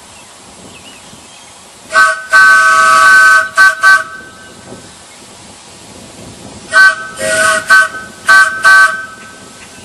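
Large wooden four-chime train whistle blown in two runs of toots, each toot a chord of several steady tones. About two seconds in comes a short toot, a long blast and two quick toots. Near seven seconds a short toot and a blast follow, then three more short toots.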